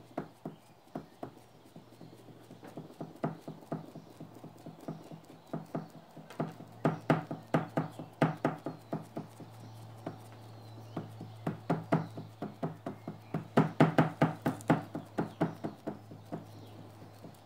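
A cloth rag dabbed and pressed again and again on a painted MDF board, lifting off wet paint: soft, irregular taps and knocks, coming in quick runs of several a second.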